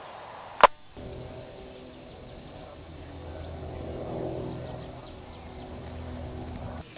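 An engine running steadily with a low hum, swelling to its loudest about four seconds in and then easing off. A sharp click comes just before the hum starts.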